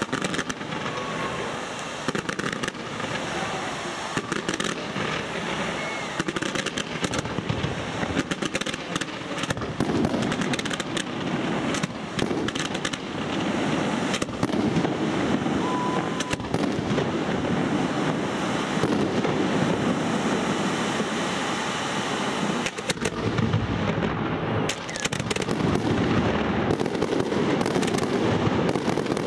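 Fireworks display: a dense, irregular run of bangs and crackling from shells and spark fountains, with a brief lull about two-thirds through before it picks up again, louder.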